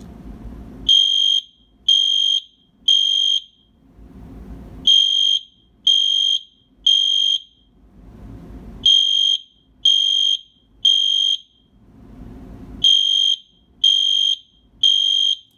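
Edwards G4AVRF horn strobe sounding its horn in the temporal-three fire evacuation pattern: four rounds of three short, high, loud beeps, with a pause after each round. It uses the same tone as the EST Genesis horns but sounds a lot lower in frequency than them.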